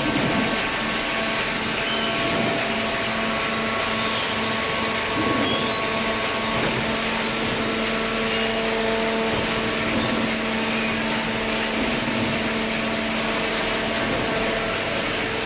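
Waste paper baler running: a steady mechanical hum with a broad whirring noise, typical of its hydraulic pump motor.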